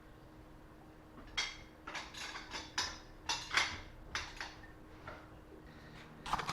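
Hand ratchet clicking in short irregular runs as lug nuts are tightened by hand, with another click near the end.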